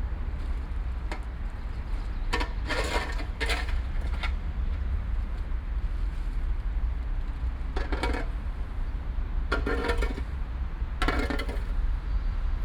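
City park ambience: a steady low rumble of city traffic, with several short, sharp sounds breaking in about two to four seconds in and again near eight, ten and eleven seconds.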